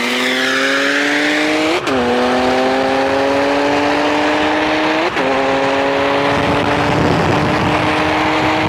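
Turbocharged BMW straight-six engine at full throttle in a roll race, its pitch climbing steadily through the revs. Two upshifts, about two and five seconds in, each drop the pitch sharply before it climbs again.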